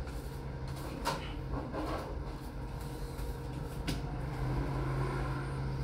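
A steady low hum with a few faint light clicks.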